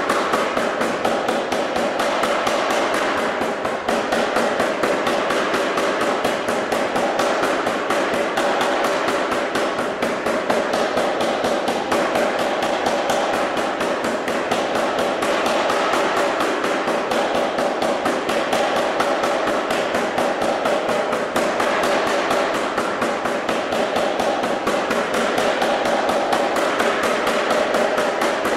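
Anyang 25 kg self-contained pneumatic forging hammer running in continuous series blows, its ram pounding a hot steel bar on the dies in a rapid, even rhythm.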